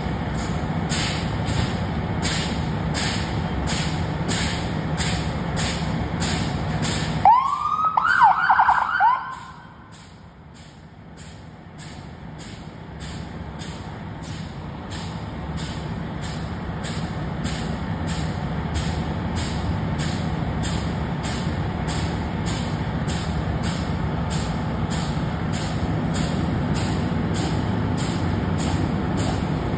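Fire engines' diesel engines idling steadily with a regular pulsing, about two to three beats a second. About seven seconds in comes a two-second burst of quick rising siren whoops: a brief siren test during the apparatus check. After it the overall sound dips and slowly swells back.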